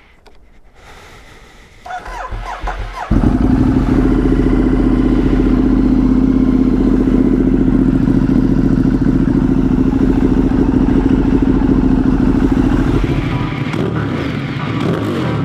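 Ducati Streetfighter motorcycle engine started: a brief crank, then it catches about three seconds in and runs at a steady idle. Its note changes near the end.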